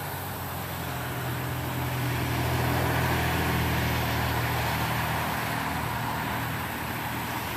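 Road traffic passing: a low engine hum with tyre noise, growing louder about two seconds in and easing off after about five seconds.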